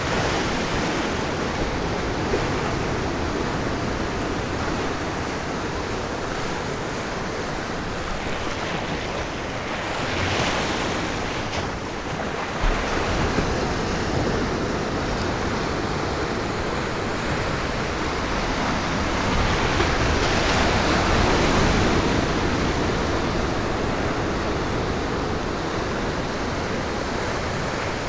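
Ocean surf breaking and washing over the rocks of a jetty, a steady rush that surges louder about ten seconds in and again around twenty seconds in.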